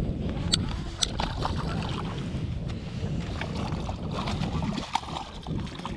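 Wind rumbling on the microphone on an open boat, with two sharp clicks in the first second or so.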